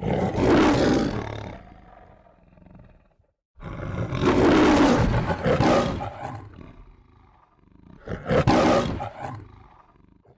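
Roar sound effect: three loud roars, each tailing off over a second or two.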